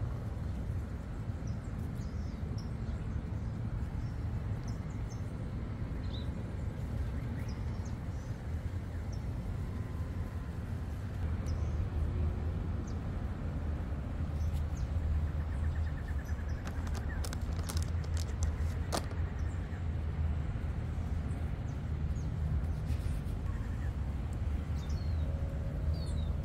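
Outdoor background of a steady low rumble with scattered short bird chirps. A little past halfway comes a brief run of sharp crackling clicks from the disposable diaper's plastic being handled and fastened.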